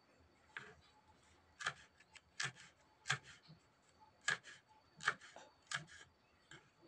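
Kitchen knife chopping small red chilies on a wooden chopping board: about seven separate chops at an uneven pace, roughly one every second.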